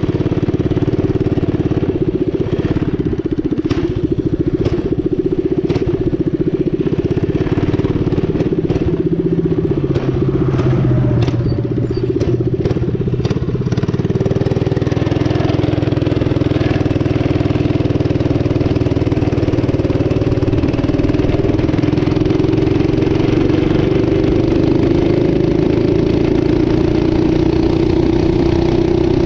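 Mini bike engine, fitted with an exhaust header and a 22 mm racing Mikuni carburetor, running hard under way on a speed run, its pitch climbing slowly through the second half. Sharp clicks come through in the first half.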